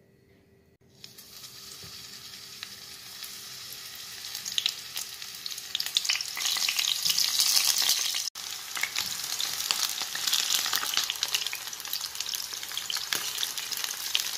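Sliced eggplant frying in hot oil in a stainless steel pan: a crackling sizzle that starts about a second in and grows louder over the next few seconds, cutting out for an instant about eight seconds in.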